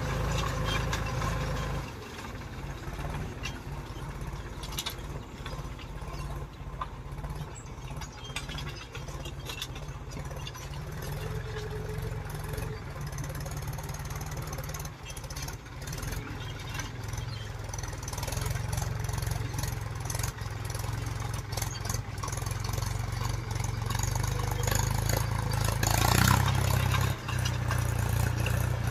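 Mahindra tractor's diesel engine running steadily under load as it pulls a cultivator through the field. It grows fainter as the tractor moves off and louder again as it works back closer, with a brief louder rush near the end.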